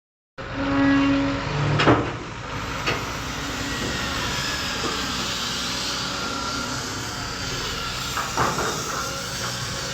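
Excavator working: its diesel engine runs steadily with hydraulic whine, and there are sharp knocks about two, three and eight and a half seconds in.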